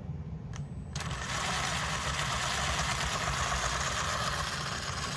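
WLToys 10428 RC buggy's electric motor and geared drivetrain running on a freshly replaced pinion gear. The whirring starts suddenly about a second in and holds steady, over a low rumble.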